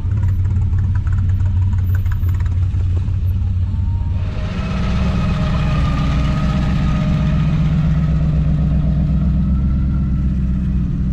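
Supercharged Hemi V8 of a hot rod coupe running with a steady low idle, then stepping up to a faster, steady run about four seconds in.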